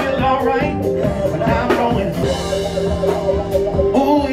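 Live hip-hop performance: a rapper rapping into a handheld microphone over a loud beat with drums.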